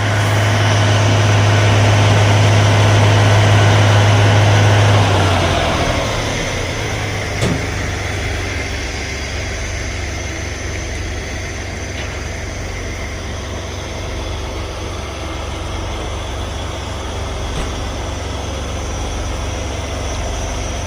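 Railway ballast cleaning machine running with a loud, steady low drone. About five seconds in it winds down, its pitch falling, then settles into a steadier, quieter running. A single sharp knock comes about seven seconds in.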